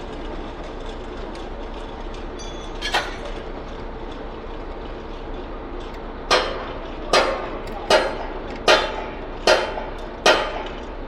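Concrete pump at work: its engine runs steadily under a string of loud metallic knocks. One knock comes about 3 seconds in, then six more about 6 seconds in, one every 0.8 seconds, each ringing briefly. Each knock is the pump switching over at the end of a piston stroke.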